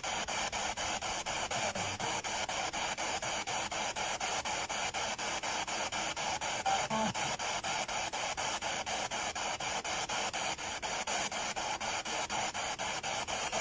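Spirit box sweeping through radio stations: a steady hiss of static chopped about five times a second, with a short pitched snatch about seven seconds in.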